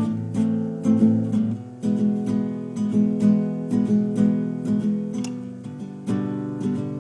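Background music: strummed acoustic guitar playing steady chords, about two strums a second.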